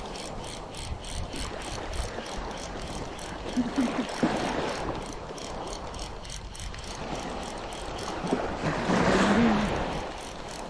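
Fishing reel being cranked to retrieve line after a cast, its gears giving a fast, even ticking.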